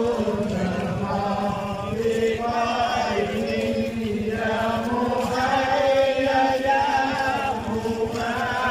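A crowd of men chanting an Islamic devotional chant in unison as they walk, on long drawn-out melodic notes.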